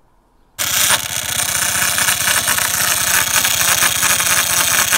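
Mondial 50 ZNU 50cc scooter engine running with a loud rattling, grinding noise from the belt and variator side. The mechanic later traces the noise to a loose front variator nut. The sound starts abruptly about half a second in.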